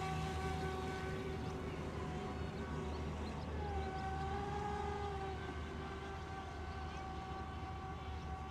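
Radio-controlled racing boat engines running at speed in a steady high-pitched whine, with a second engine's tone swelling and shifting slightly in pitch about four seconds in as a boat passes.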